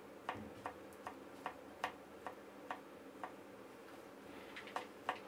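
Chef's knife slicing Thai pork sausage (moo yor) on a bamboo cutting board: light, regular knocks of the blade hitting the board, about two to three a second.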